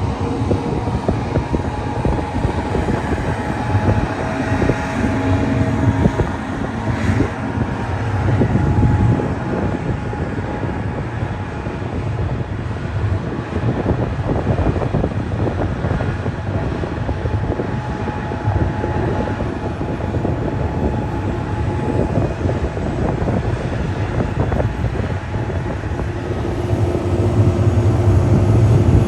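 A large vehicle engine running steadily under load, a continuous heavy machinery drone, growing a little louder near the end.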